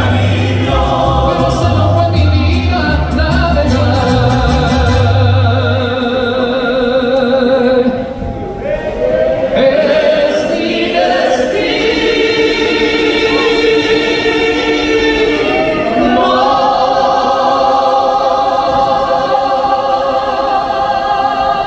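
Live mariachi ensemble playing: violins, trumpets, guitars, guitarrón and harp, with long, wavering held notes. The deep bass drops out about six seconds in.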